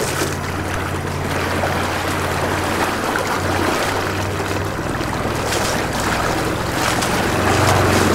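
Homemade 48-volt Newman-type electric outboard motor running under heavy load, its propeller churning water over a steady low motor hum. It gets a little louder about seven seconds in as the power is turned up toward 50 amps.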